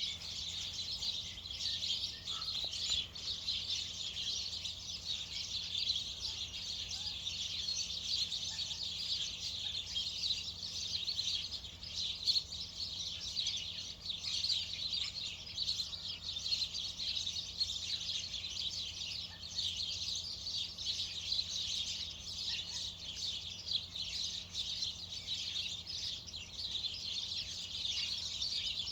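A flock of many small birds chirping and chattering at once, a dense continuous din of overlapping calls.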